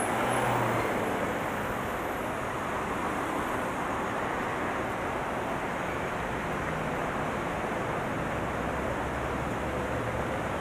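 Steady road and traffic noise heard from inside a moving vehicle in city traffic, with no distinct events standing out.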